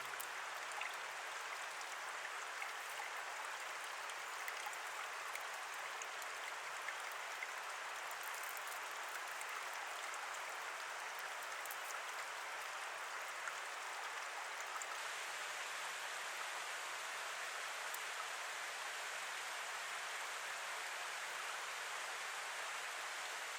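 Steady rush of flowing water, even throughout, with a few faint ticks.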